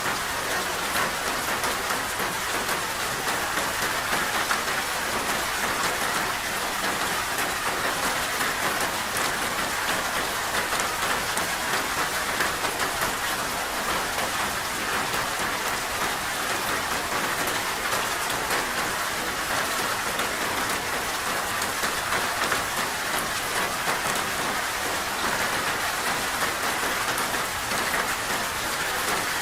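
Steady rain falling and pattering on a surface, an even hiss with many small drop ticks.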